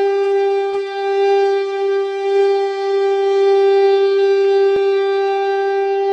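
Conch shell (shankh) blown in one long, steady note.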